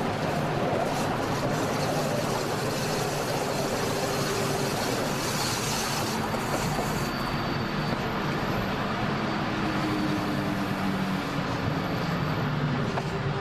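Electric train running along the Flåm Railway track: a steady rumble of wheels on rail, with faint humming tones that slowly shift in pitch.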